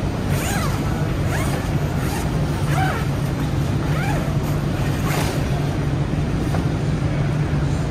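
Steady rushing background noise of a large hall with a constant low hum, and a few brief rustles of a nylon table cover being pulled back by hand, with faint distant voices.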